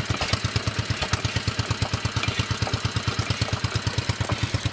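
Petter single-cylinder petrol engine running steadily, belt-driving a Southern Cross Billabong crosshead water pump, with an even, rapid chugging beat of about eight a second.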